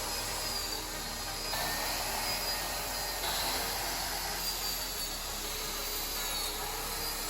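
Electric power tool running steadily with a high motor whine, cutting the openings in an MDF fireplace panel.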